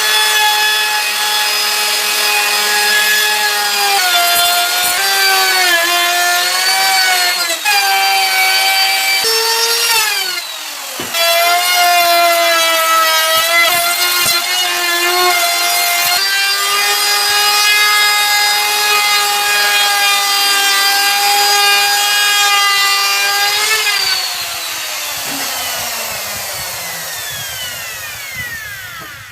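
Electric power saw cutting wood; its motor whine dips in pitch under load and recovers several times, with a short drop about ten seconds in. Near the end it is switched off and winds down, the whine falling steadily in pitch as it fades.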